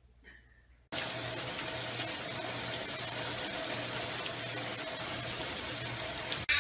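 Steady rain falling on a wooden deck, starting suddenly about a second in after near silence.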